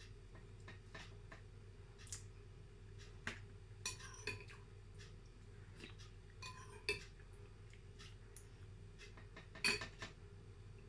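Metal spoon clinking against a ceramic soup bowl several times while scooping soup, with quiet chewing between; the loudest clink comes near the end.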